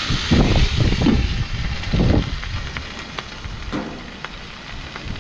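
Water splashed onto a hot flat-top griddle hissing into steam around frying eggs, loudest at the start and fading. Gusts of wind buffet the microphone as low rumbles, mostly in the first two seconds.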